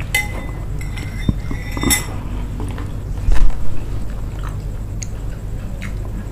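Mukbang eating sounds: chewing on jelly and grapes, with spoons clicking against a ceramic bowl and plate. A few low thumps a little past the middle are the loudest part.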